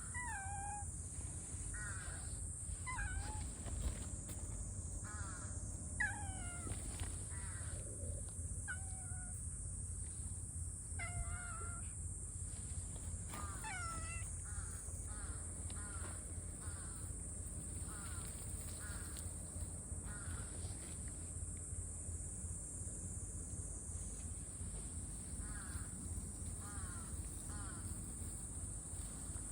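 Short animal calls, each falling in pitch, repeated at irregular intervals over a steady low rumble.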